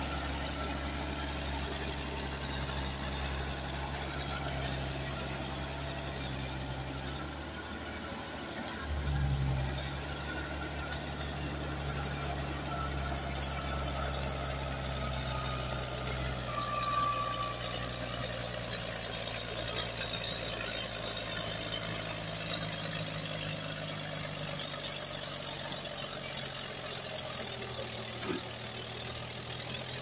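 Caterpillar D6D crawler dozer's diesel engine running steadily while the dozer pushes wet clay. About a quarter of the way in, its note drops briefly and then picks up again with a short surge.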